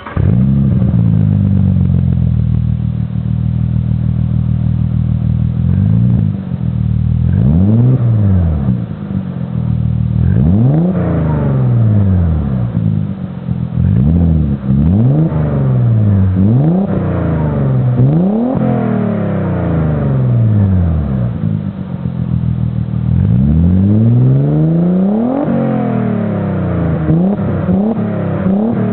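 Audi B5 S4's 2.7-litre twin-turbo V6 through a custom 3-inch exhaust with a single Magnaflow muffler, idling steadily just after starting, then revved in a string of quick throttle blips. A longer, higher rev comes about three-quarters through, followed by a few more blips.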